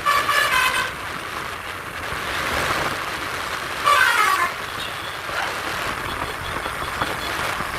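Bus telolet (basuri) musical air horn playing a quick run of changing notes for about the first second, then vehicle noise, and a short loud horn blast whose pitch slides down about four seconds in.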